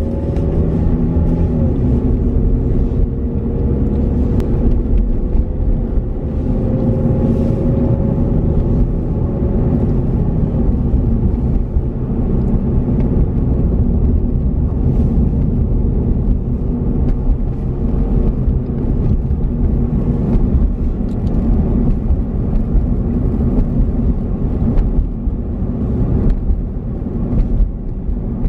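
Car driving, heard from inside the cabin: a steady low rumble of engine and road noise, with a faint engine tone rising slowly over the first several seconds.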